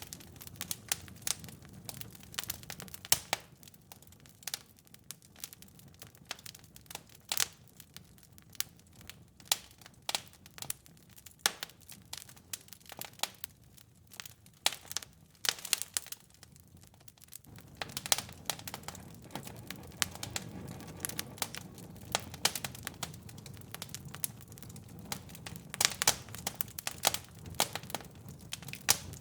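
Wood fire crackling in a fireplace, with irregular sharp pops and snaps over a low rumble. The rumble grows louder a little over halfway through.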